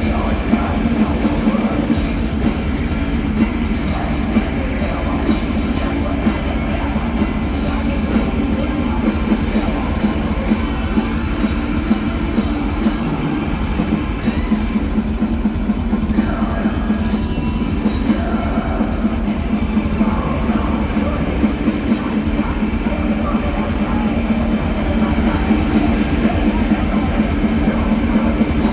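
Live heavy metal band playing loudly: distorted electric guitars, bass and a pounding drum kit in one dense, unbroken wall of sound, with a brief slight dip about halfway through.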